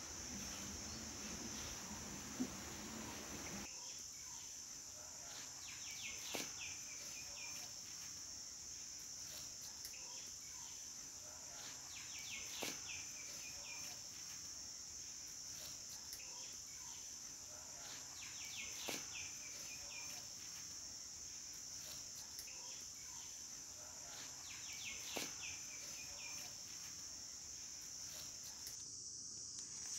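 Steady high-pitched drone of insects, with a short chirping call that repeats about every six seconds.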